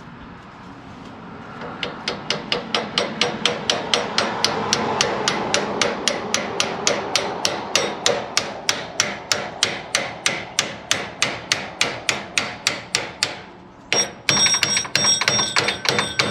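Hammer tapping a new bearing onto a combine's grain-tank auger shaft, a steady run of about four blows a second. Near the end, after a short pause, come a few sharper blows that ring like metal.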